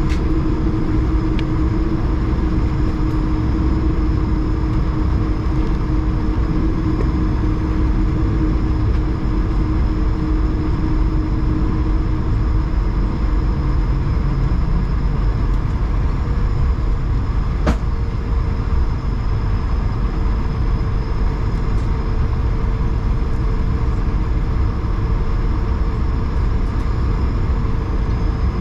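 Cabin noise of an Airbus A220 taxiing, its Pratt & Whitney PW1500G geared turbofans at low power: a steady low rumble with a hum that fades out about halfway, a higher hum coming in later. A single sharp click a little past the middle.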